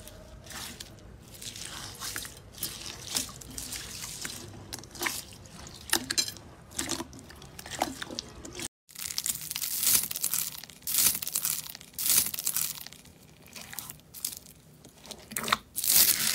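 Hands squishing and kneading bead-filled slime, giving wet squishes and irregular crackles and crunches. A brief break a little past halfway, after which the crackling is louder and denser.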